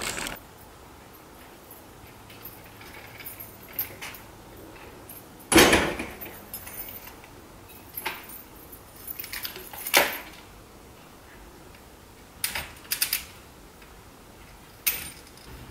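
Several separate sharp clicks and knocks a few seconds apart, with a quick cluster of clinks a few seconds before the end, against a quiet background.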